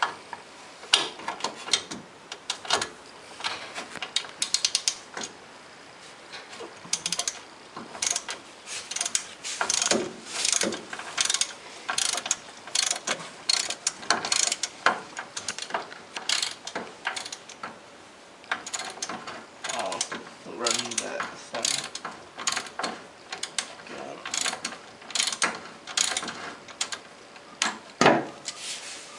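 A 3/8-inch-drive ratchet with a hex bit socket clicking in quick runs of strokes, with short pauses between, as it works loose the brake caliper bolts. One louder knock comes near the end.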